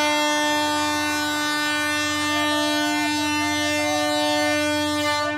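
An electric locomotive's horn, the departure signal of the Cassiopeia sleeper train, sounds one long steady blast of about five seconds, then cuts off. Crowd voices are faint underneath.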